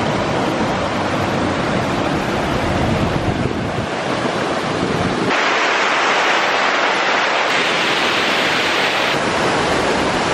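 Rushing water of a mountain stream and waterfall, a steady hiss. In the first half low wind rumble on the microphone runs under it. About five seconds in, the sound switches abruptly to a brighter, slightly louder rush of water cascading over rock.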